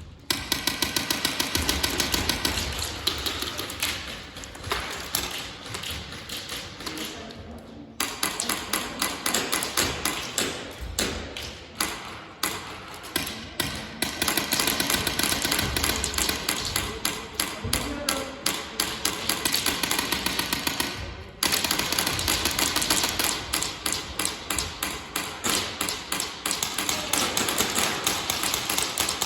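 Airsoft guns firing in quick strings of sharp clicks, shot after shot, in bursts of many strokes a second. The sound breaks off and restarts abruptly twice, about a third and two thirds of the way through.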